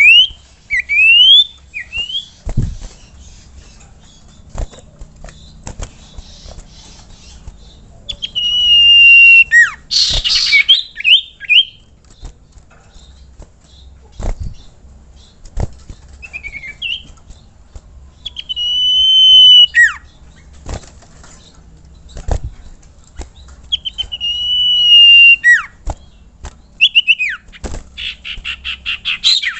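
Sirtu bird singing loud, clear whistles. Short rising notes come at first, then several notes held for a second or more at one pitch that end in a quick downward slur, and a fast run of repeated notes near the end. A harsh, noisy burst comes about ten seconds in, and scattered knocks fall between the phrases.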